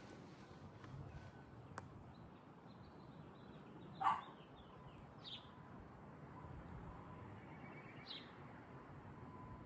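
A dog barks once about four seconds in, and a bird chirps briefly a couple of times over a low background hum.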